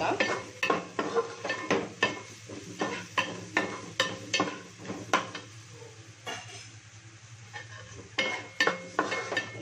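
Metal spatula scraping and knocking against a lightweight metal pot while stir-frying vegetables, over a faint sizzle. The strokes come roughly twice a second, ease off for a couple of seconds past the middle, then pick up again near the end.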